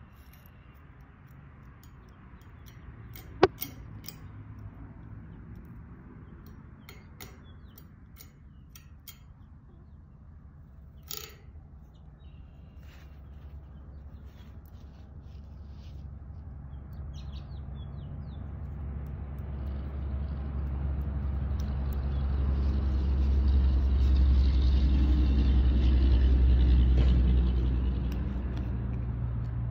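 Low rumble of a passing vehicle that swells slowly, is loudest about three-quarters of the way through, then eases off. Earlier, a few sharp clicks and light taps, from a palette knife working thick paint on the metal saw blade.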